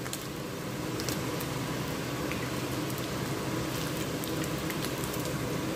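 Chicken wings frying in hot oil in a pan: a steady sizzle with scattered small pops and crackles, over a faint steady hum.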